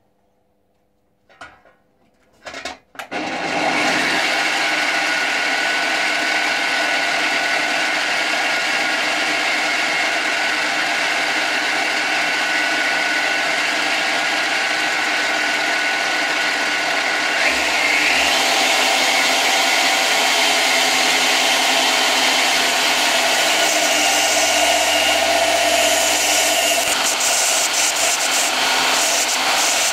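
Belt grinder switched on: a couple of clicks, then the motor and sanding belt come up to speed about three seconds in and run steadily. The running noise grows slightly louder about halfway through.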